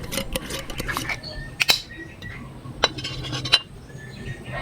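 Cutlery clinking and scraping against a dish while eating. The three sharpest clinks come about one and a half, three and three and a half seconds in.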